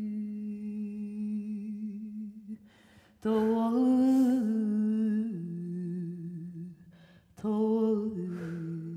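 A woman humming long, low, wordless notes that step slowly down in pitch, in three phrases with a breath before the second and third.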